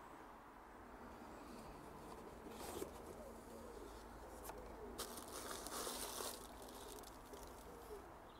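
Faint rustling, crinkling and tearing of packaging as a boxed alternator is unpacked, in a few short spells, the busiest about halfway through. Birds call faintly in the background.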